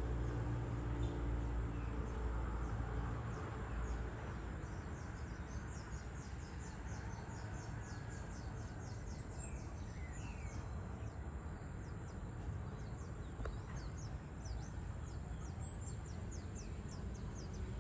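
Outdoor ambience of a town: a steady low background hum, with a heavier low rumble that eases about four seconds in, and quick high chirps of small birds repeating through the second half.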